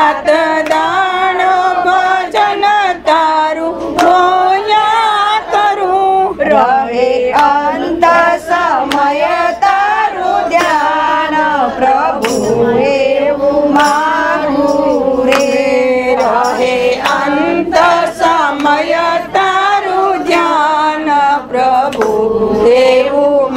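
Gujarati devotional bhajan music: a continuous melody that wavers in pitch, with percussion strokes at intervals.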